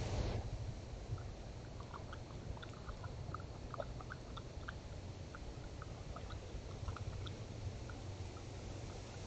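Raccoon chewing and smacking as it eats from the ground: many short, irregular smacks and clicks, over a steady low hum.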